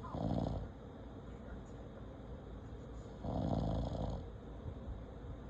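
Snoring: two loud snores about three seconds apart, the first right at the start and the second, longer one past the middle, with quiet breathing between.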